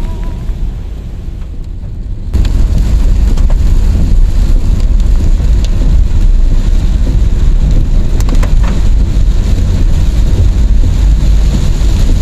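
Heavy rain drumming on a moving Honda Brio hatchback, heard from inside the cabin, over a low rumble of road and engine noise. The rain noise jumps abruptly to full loudness about two seconds in.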